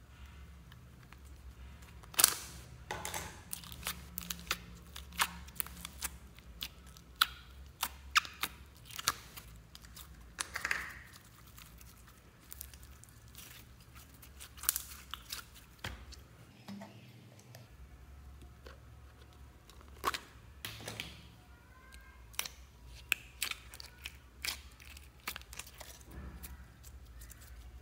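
Slime squeezed and stretched by hand: an irregular run of sharp wet clicks, pops and crackles, the loudest about 2 and 7 seconds in, over a low steady hum.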